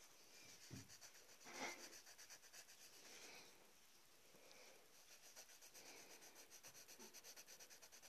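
Faint, rapid back-and-forth scribbling strokes on paper, several a second, as in shading a drawing. The strokes come in two runs with a short pause between them.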